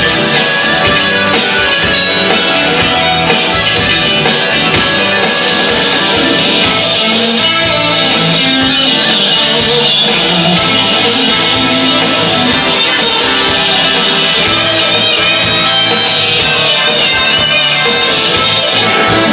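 Rock band playing an instrumental passage: guitars over a steady beat, with no singing.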